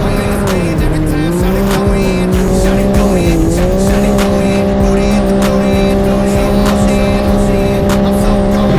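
Race vehicle engine running at high, steady revs. The pitch drops briefly twice, once about a second in and once about three seconds in, as the throttle is lifted, then holds level. Music plays underneath.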